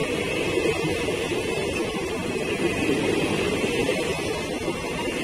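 Indian Railways ICF passenger coaches passing at speed close to the track: a steady noise of steel wheels running on the rails.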